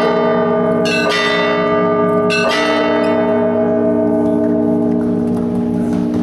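Russian Orthodox church bells in an Easter peal (zvon): a cluster of strikes about a second in and another about two and a half seconds in, then no more strikes as the bells ring on and slowly fade, the peal drawing to its close.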